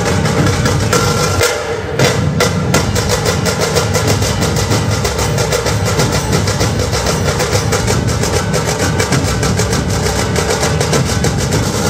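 Dhol-tasha ensemble playing: many large barrel dhols beaten in a heavy, steady rhythm under fast stick rolls on the small tasha drums. The playing drops for a moment just before two seconds in, then returns with a loud stroke.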